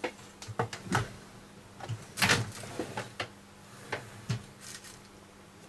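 Scattered light clicks and knocks of things being handled on a workbench, over a faint steady hum.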